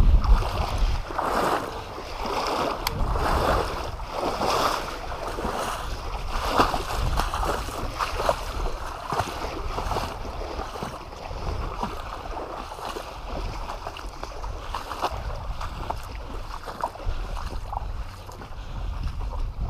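Footsteps wading through knee-deep creek water: legs and boots sloshing and splashing in a rough stride rhythm, about one push a second at first, then more continuous.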